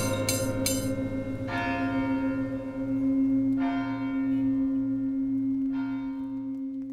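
A recording of many different bells ringing together in a clanging clatter that thins out. A quick run of strikes in the first second is followed by single strikes about two seconds apart over the long hum of a large bell, and the hum fades away near the end.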